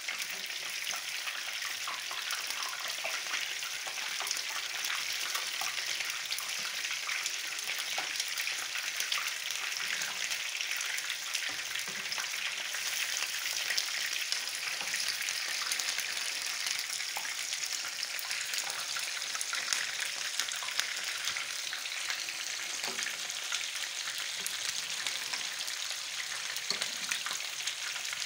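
Meatballs frying in hot oil in a pan: a steady sizzle with crackling. Now and then come light knocks and scrapes of a metal spatula turning them.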